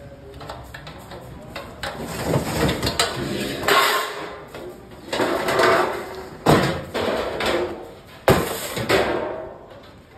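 Metal utensil knocking and scraping in a large metal cooking pan while halwa is stirred, several hard knocks at irregular intervals of one to two seconds, each followed by a clattering scrape.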